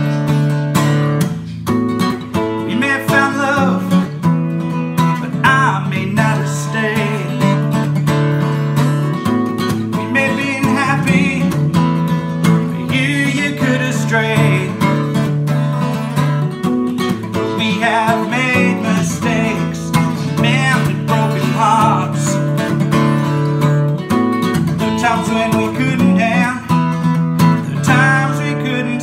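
Strummed acoustic guitar with a harmonica played from a neck rack over it, a wavering melody line above the chords, in an instrumental break of a folk song.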